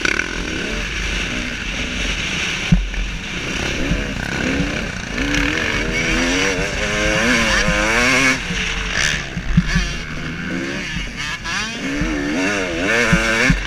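KTM 300 SX two-stroke motocross engine, its pitch repeatedly rising and falling as the throttle is opened and closed, over steady wind rush on the helmet camera and a few sharp knocks.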